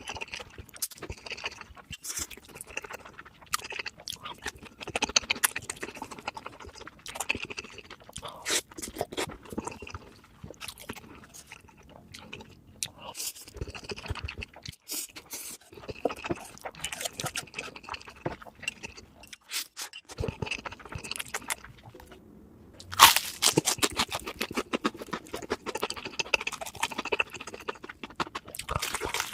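Close-miked eating: irregular crunching bites and chewing of crispy fried food, with the loudest run of crunches about two-thirds of the way in.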